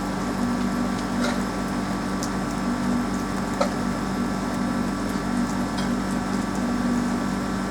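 Rain falling on a roof, with scattered single drops clicking sharply, over a steady low hum.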